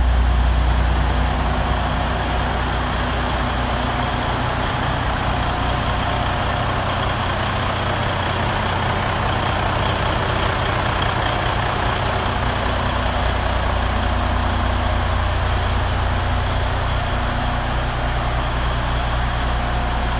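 Diesel engine of a 2010 Western Star 4900 heavy truck idling steadily, a low continuous hum.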